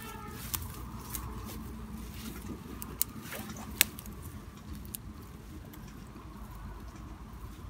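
Rustling of dry grass and handling noise from a hand working in the grass, with a few sharp clicks, the two loudest about three and four seconds in, over a low steady rumble.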